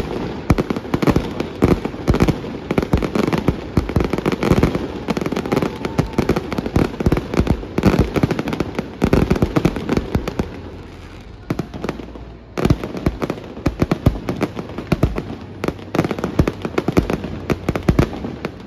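Aerial firework shells bursting in a rapid barrage of many overlapping bangs. The bangs thin out briefly about eleven seconds in, then resume just as densely.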